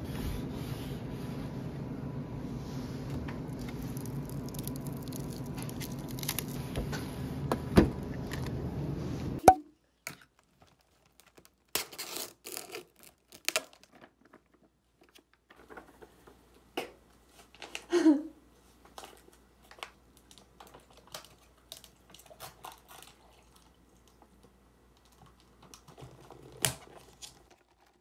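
Steady hum of convenience-store refrigerators and freezers, cut off suddenly about a third of the way in. After that, quiet small handling sounds: plastic crinkling and tearing and ice clicking in a plastic cup as an iced drink is made, with one louder rustle about two-thirds in.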